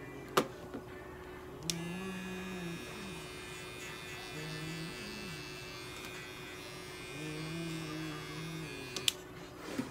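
Small cordless pet clipper trimming the fur on a cat's paw: it switches on with a click, buzzes steadily for about seven seconds, then switches off with a click. A sharp click sounds just after the start.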